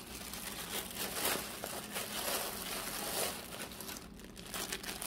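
Plastic packaging crinkling and rustling unevenly as it is handled: a poly mailer bag and a clear plastic wrapper.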